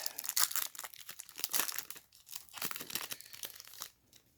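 Plastic trading card pack wrapper being torn open and crinkled by hand, a dense run of crackles and rips that stops shortly before the end.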